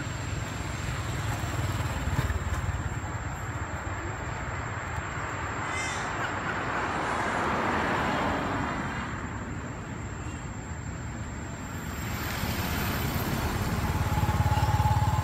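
Baby long-tailed macaques wrestling and giving a few short, high squeals, about six seconds in. Behind them is steady background road noise, which swells broadly toward the middle.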